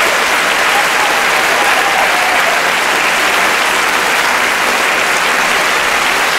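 Audience applauding: dense, even clapping that holds steady throughout.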